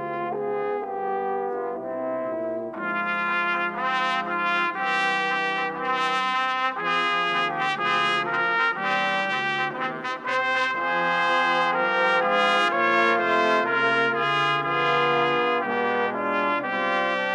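Military brass band playing sustained chords, trumpets and trombones sounding together; the sound grows fuller about three seconds in.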